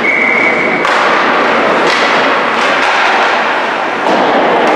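Ice hockey play in an indoor arena: a constant loud wash of skates on ice and arena noise, with a few sharp stick-and-puck knocks. A short steady high tone sounds in the first second.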